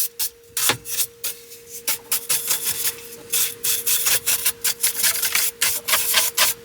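Small handheld rechargeable car vacuum running with a steady whine, its nozzle scraping and rubbing over the car's interior in quick, irregular strokes that grow busier from about two seconds in.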